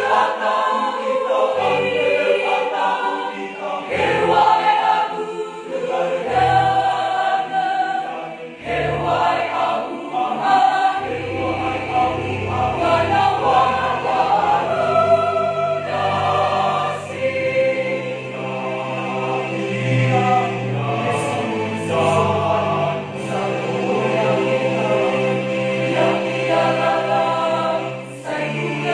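Mixed church choir of men's and women's voices singing a hymn in parts. Short low bass notes sound every couple of seconds at first, then become longer and held.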